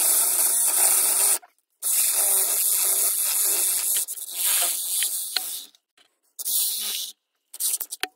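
Cordless reciprocating saw cutting through the copper windings of an electric motor stator clamped in a vise, severing the winding ends so the copper can be pulled out. The saw runs in four bursts, stopping briefly about a second and a half in, near six seconds, and again near the end.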